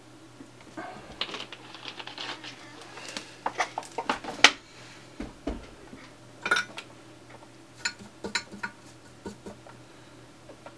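Irregular clicks, taps and light clatter of tools and small hard parts being handled on a workbench, with a soft low thud about five seconds in.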